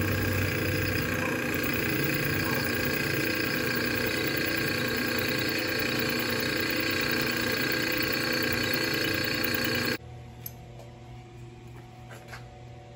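Drill press running and drilling into an aluminium adapter sleeve, a steady motor-and-cutting noise. It cuts off suddenly about ten seconds in, leaving a quieter hum with a couple of light metal clicks.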